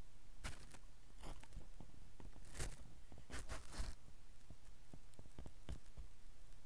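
Sheets of paper rustling and shuffling close to a lectern microphone, in a few short crackling bursts with small clicks in between, over a steady low hum.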